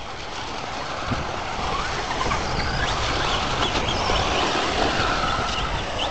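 Electric RC short-course truck with a brushless 5200 kV motor, driving and sliding on loose, wet dirt: a steady motor whine with tyre and mud noise, growing louder over the first few seconds and then holding.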